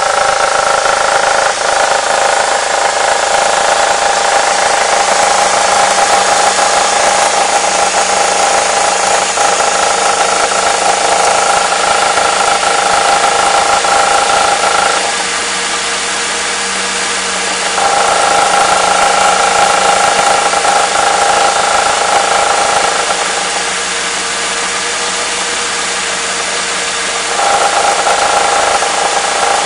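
Mercedes M111 four-cylinder petrol engine idling with a knock that can be mistaken for worn hydraulic lifters. A steady whine rides over the idle, and the sound drops and goes quieter twice for a few seconds before coming back.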